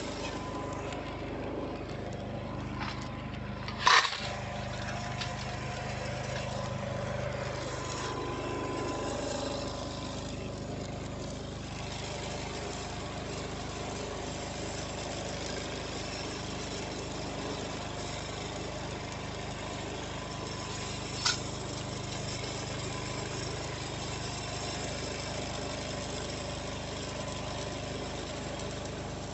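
An engine idling steadily, with a sharp knock about four seconds in and a lighter click about twenty-one seconds in.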